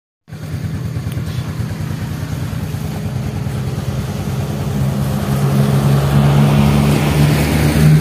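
A motor vehicle engine running, its pitch and loudness rising gradually toward the end.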